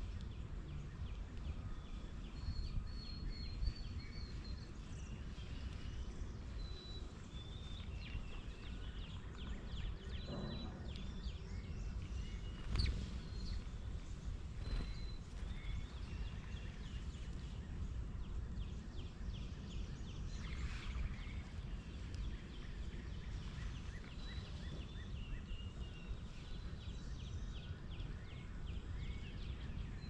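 Wild songbirds chirping and trilling in short phrases over a steady low outdoor rumble, with a sharp click about halfway through.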